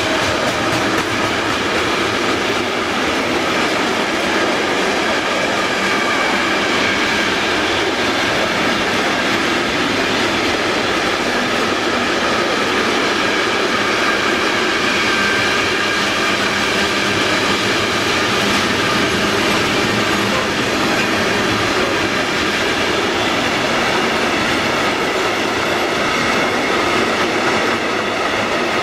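Container freight train passing close by behind an electric locomotive: steady wheel and rail noise of the wagons rolling past, with faint high ringing tones over it.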